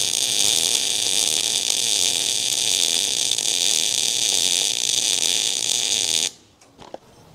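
MIG/MAG welding arc on steel tube: a steady, high-pitched sizzle while the bead is run, cutting off suddenly about six seconds in when the gun is stopped.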